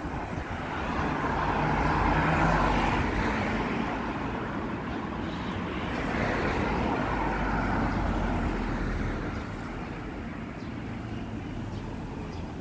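Cars passing on a street: tyre and engine noise swells as one goes by about two seconds in and another about six seconds in, then settles to a low steady traffic hum.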